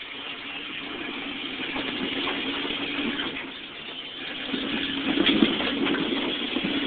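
A vehicle engine running with a steady hum, getting louder about five seconds in.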